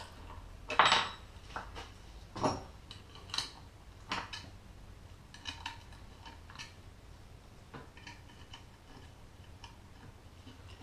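Small metal parts and screws of a Motorcraft 2100 two-barrel carburetor clinking and tapping against each other and the bench as it is taken apart: a scatter of light metallic clicks, the loudest about a second in.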